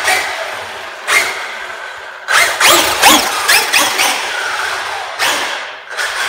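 Traxxas UDR radio-controlled truck driving under throttle: its electric motor whines, rising in pitch with bursts of throttle, over a steady rushing noise.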